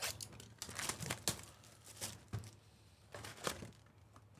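Plastic shrink wrap on a cardboard trading-card box being slit with a blade and peeled off, and the box opened: an irregular run of crinkles and sharp crackles.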